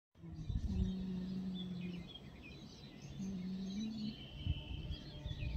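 Small birds chirping and twittering over a low steady hum that steps up in pitch about three seconds in.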